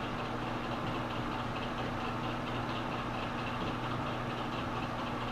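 Victor metal lathe running steadily at low speed, a constant hum with a faint, even ticking from the turning four-jaw chuck and spindle.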